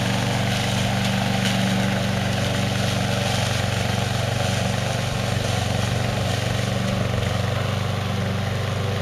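Hybrid Goat 22T remote-control slope mower running steadily while mowing tall, thick grass: its gas engine drives the cutting blade and a generator for the electric track motors, giving an even engine drone.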